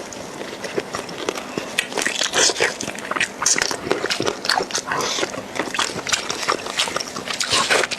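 Close-miked eating sounds of beef bone marrow: a dense, irregular run of quick wet mouth smacks and sucking.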